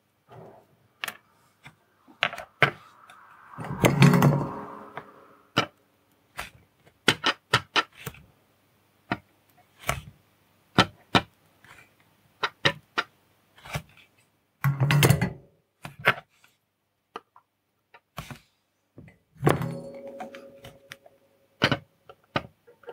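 Small clicks and taps of tweezers and a soldering iron on a circuit board and bench while surface-mount resistors are placed and soldered, with three louder thuds with a brief hum in them, about four, fifteen and twenty seconds in.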